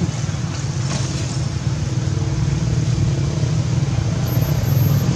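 Steady low rumble of a motor vehicle engine running, growing a little louder near the end.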